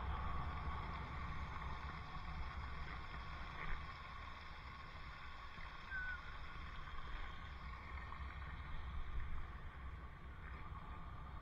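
Wind rumbling on a helmet camera's microphone while cycling, with a short faint chirp about six seconds in.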